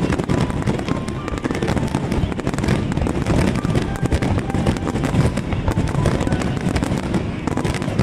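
Fireworks display: a dense, continuous barrage of bursts and crackling with no let-up.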